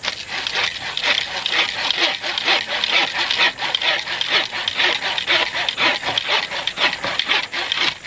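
Hand saw blade of a Zippo AxeSaw cutting through a dry tree branch in quick, steady back-and-forth strokes, each stroke a rasp of teeth in wood.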